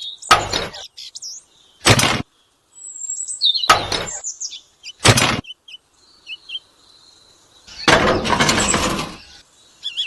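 Small birds chirping and twittering in the background. Over them come four short, sharp cracks spaced a second or two apart, then a longer, rough crashing burst of about a second and a half near the end.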